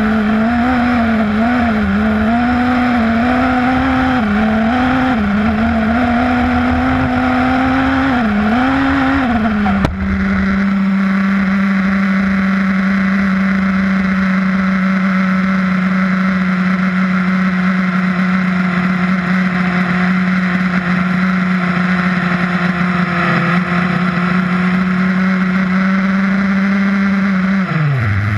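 XTM Rail RC buggy driving fast over grass: its motor and drivetrain whine, rising and falling with the throttle, over wind rumble on the car-mounted camera. About ten seconds in comes a sharp impact as the car crashes. After it a steady hum holds at one pitch, then drops away near the end.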